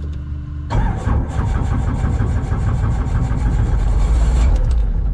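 Starter cranking the four-cylinder Lycoming engine of a Robinson R22 helicopter: a sudden rhythmic churn from under a second in that stops near the end, without the engine settling into a run. The pilot judges the engine flooded from over-priming.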